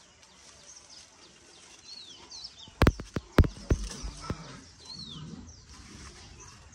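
A quick run of five or six sharp knocks and clicks about three seconds in: the wire cage rattling as leafy grass stalks are pushed in through its bars. Small birds chirp throughout.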